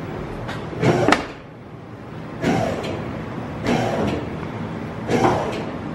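Four hollow metal clunks, about a second or so apart, from a pickup truck's steel bed being shifted while it is rigged to be lifted off the frame.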